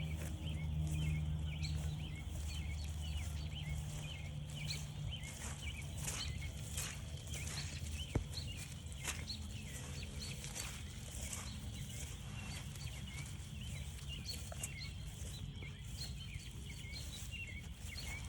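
A dense chorus of frogs, many short high chirps overlapping without a break, with irregular footsteps on the trail. A low steady hum fades out about four seconds in.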